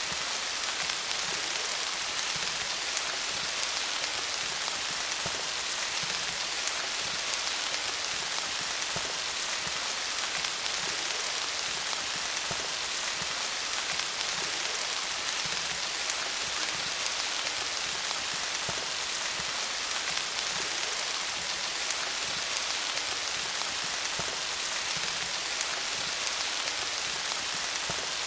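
Steady rain falling on leaves: a continuous hiss made of countless fine drop ticks.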